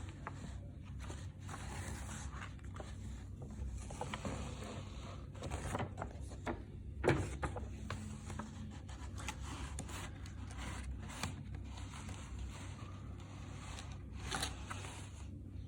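CD packaging being handled and opened: irregular rustling and scraping strokes with scattered clicks, a sharper click about seven seconds in and another near the end.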